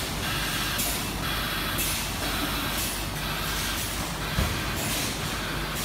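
Factory machine noise from a filter cage welding machine: a steady low hum with short bursts of hissing air about once a second, its pneumatic cylinders cycling. A single knock about four seconds in.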